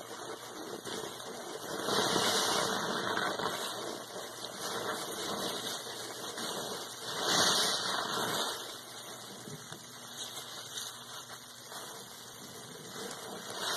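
A soaked sponge squeezed and kneaded by rubber-gloved hands in foamy, soapy water: wet squelching and crackling suds, with louder squeezes about two seconds in and again about seven seconds in.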